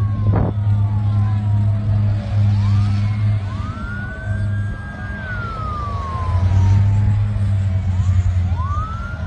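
Emergency vehicle sirens wailing, several overlapping: each rises quickly, holds, then falls slowly. Under them runs a steady low engine hum, with a short knock near the start.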